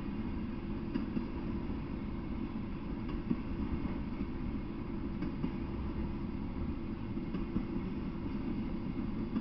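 Double-stack intermodal container freight train rolling past: a steady low rumble with a few sharp clicks.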